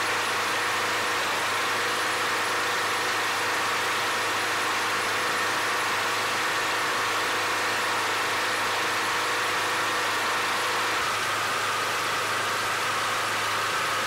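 Briggs & Stratton lawn mower engine running steadily while air is tapped off its cylinder head through a check valve and hose to fill a car tire. Its tone shifts slightly about eleven seconds in.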